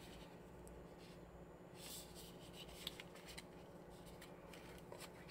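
Near silence, with faint paper rustling and a few light ticks as a paper card sleeve holding an iPhone SIM-eject tool is handled.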